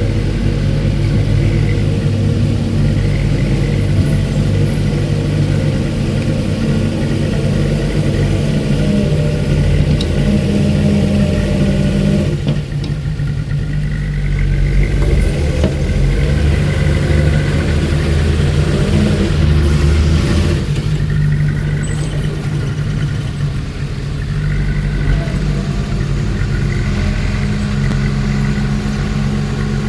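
Diesel engines of a small bulldozer and dump trucks at work, running steadily, with the pitch and loudness shifting several times as the load changes.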